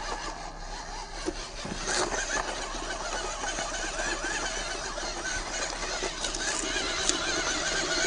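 1/14-scale JY66 RC Jeep crawler driving over dirt and gravel: its 260 brushed motor and drivetrain whine, the pitch wavering up and down with the throttle, over tire crunch on stones and pine needles. Sharp clicks come about two seconds in and again near the end.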